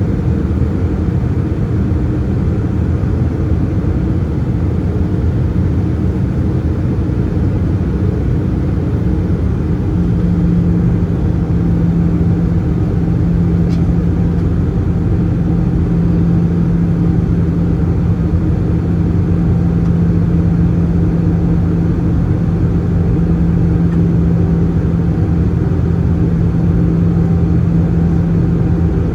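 Steady cabin noise of an Airbus A320-214 airliner in flight, its CFM56 engines and airflow heard from a window seat over the wing. About ten seconds in, a low hum steps slightly lower in pitch and grows louder, as with a change in engine thrust.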